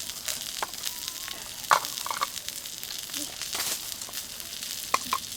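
Food frying with a steady high sizzle and a few sharp pops and crackles.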